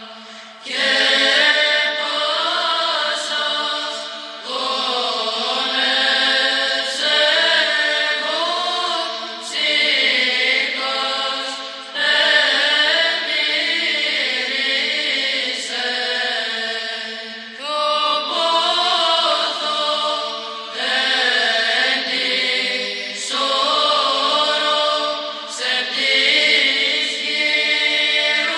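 Byzantine chant as background music: sung voices in long, slowly moving phrases a few seconds each, with brief breaks between them.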